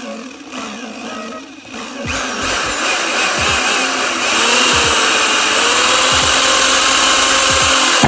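Power drill driving into a wooden desk top without a pilot hole: it starts about two seconds in, runs loud under load with a wavering motor whine, and stops abruptly at the end.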